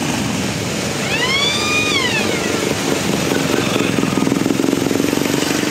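Several motorcycle engines running at low speed in a continuous rumble. From about three seconds in, one bike's engine pulses louder and creeps slightly up in pitch as it rides closer. About a second in, a brief high tone rises and then falls away over about a second and a half.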